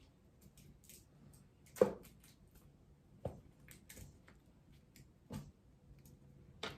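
A few scattered knocks and clicks of ingredients being handled at a kitchen pot, about five in all, the loudest about two seconds in, over a faint steady hum.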